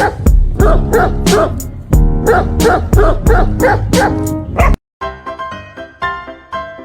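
Loud music with a steady beat and a puppy yipping repeatedly over it; nearly five seconds in it cuts off and soft piano music begins.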